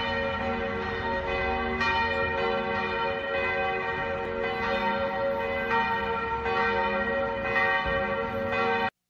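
Church bells ringing: a peal of several bells struck one after another, their tones overlapping and ringing on. The peal cuts off suddenly near the end.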